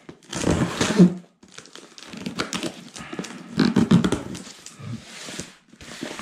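Cardboard shipping box scraping and bumping on a wooden table as it is pulled over, loudest about a second in. Then a run of clicks and rustling as the packing tape is slit open with a knife.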